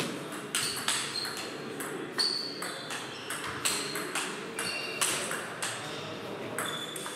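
Table tennis rally: the celluloid ball clicking sharply off the bats and the table, about two hits a second, some with a brief high ping.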